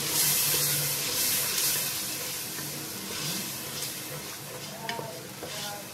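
Soaked urad dal sizzling in hot oil and fried masala in an aluminium pressure cooker, stirred with a wooden spoon; the hiss is loudest at the start and dies down. The water left on the lentils from two hours of soaking is what sets the oil sizzling.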